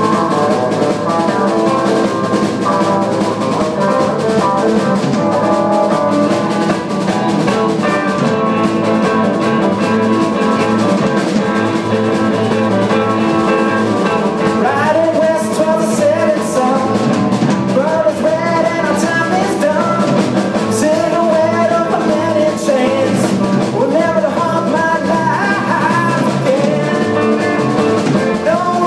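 Live rock band playing: electric guitar, bass guitar and drum kit, instrumental at first, with a male voice singing from about halfway through.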